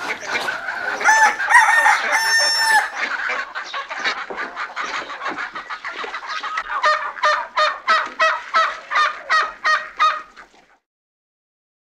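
A rooster crowing, followed by a chicken clucking in a steady run of short calls, about three a second, which stops abruptly.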